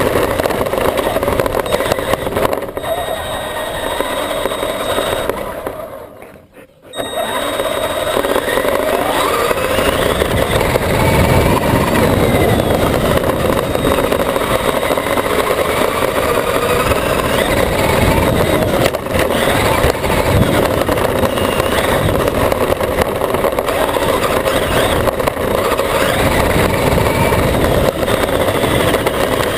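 Traxxas E-Maxx electric RC monster truck driving fast over grass, heard from its onboard camera: the electric motors and drivetrain whine with a steady rushing noise from the ride. The sound drops away briefly about six seconds in, then picks up again.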